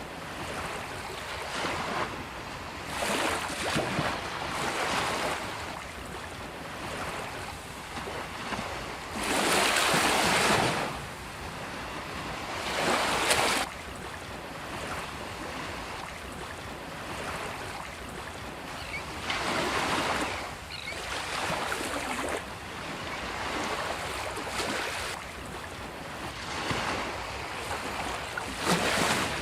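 Sea waves breaking and washing up a beach, over a steady surf hiss; the loudest breakers come around ten and thirteen seconds in, with smaller ones between.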